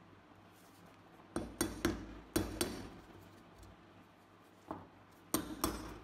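A steel screwdriver tip clinking and prying against the rusted steel frame of a Beretta Model 1934 pistol: a quick run of five sharp metallic clicks, then three more near the end.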